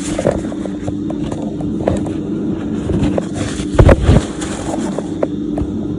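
Electric mixer running steadily as it mixes shortbread dough, with a couple of sharp knocks about four seconds in.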